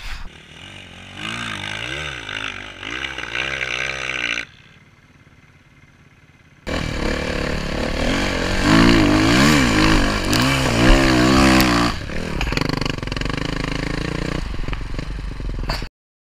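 Enduro motorcycle engine revving up and down while riding, in two stretches: a lighter one, a brief quieter gap, then a louder one. The sound cuts off suddenly just before the end.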